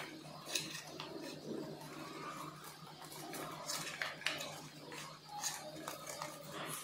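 Hands handling wiring and a metal-cased buck converter module inside an electric scooter's deck: scattered small clicks, taps and rustles as parts and connectors are moved, over a steady low hum.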